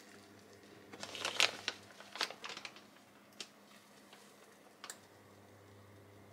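Crinkly rustling and crackling as dried fried tofu pieces are tipped from a plastic bag into a small enamel pan of dashi, with a couple of light ticks of a metal spoon against the pan. Then a faint fizz as the dry tofu soaks up the broth.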